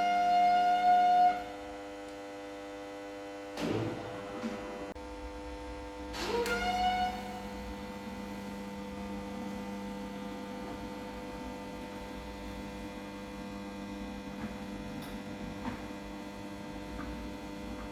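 BFT garage door opener making its annoying sound: a loud, high whine that cuts off about a second and a half in, then a steady electrical hum. Two short rising whines come about four and six seconds in.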